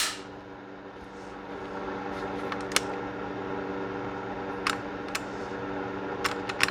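A sharp metallic click at the start, then scattered lighter clicks and taps of a handgun's parts being handled during cleaning, over a steady fan-like hum.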